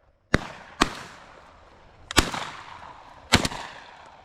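A rapid string of shotgun blasts during dove shooting: about five shots in four seconds, each sharp report trailing off, with two nearly on top of each other near the end.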